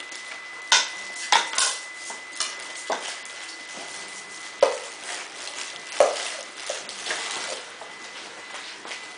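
Puppies and a cat scrambling around a sisal scratching post on a tiled floor: scattered sharp clicks, knocks and scrabbling, with a few loud knocks. A faint steady high tone runs underneath.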